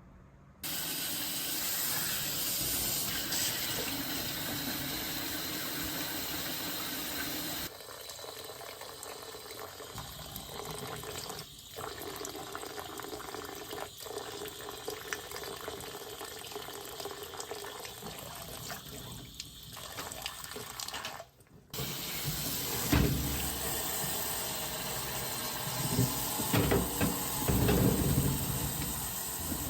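Water running from a tap into a sink in several cut-together stretches, with a few dull knocks near the end.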